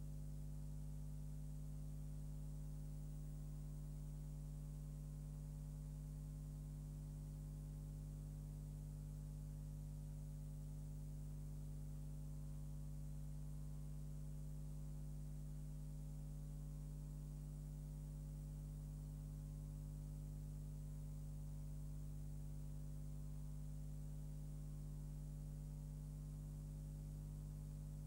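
Steady electrical mains hum with a faint hiss above it; no other sound.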